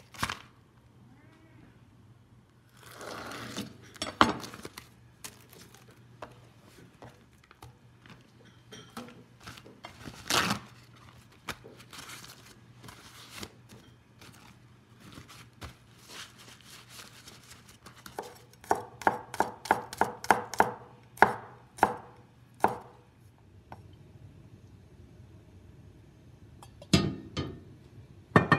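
Kitchen handling of a sous-vide steak on a wooden cutting board: plastic vacuum-seal bag crinkling, a few knocks on the board, then a run of about a dozen quick taps, some three a second, as the steak is patted dry with paper towel.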